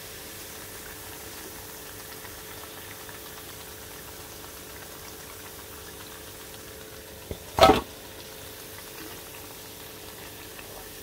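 Semolina-coated breadfruit slices deep-frying in hot oil in a kadai: a steady sizzling hiss. One sharp knock stands out about seven and a half seconds in.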